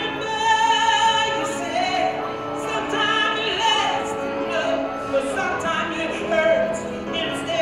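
A woman singing into a handheld microphone, a solo soul-style vocal with long held notes, several wavering with vibrato.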